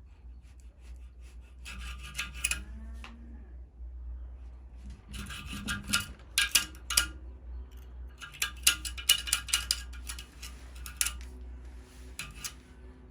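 Steel pliers being filed by hand: quick scraping strokes of metal on metal in three spells, over a steady low hum.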